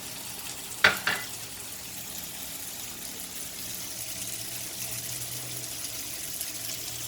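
Tofu frying in hot cooking oil in a pan, a steady sizzling hiss. Two sharp clacks, close together, about a second in.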